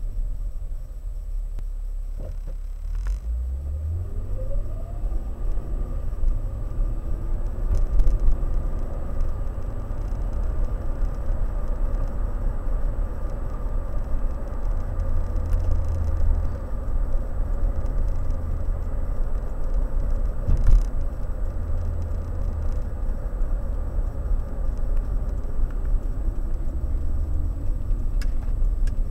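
Car driving, heard from inside the cabin: a steady low road-and-engine rumble, with a rising engine tone a few seconds in as the car picks up speed. A few light knocks from bumps in the road come and go.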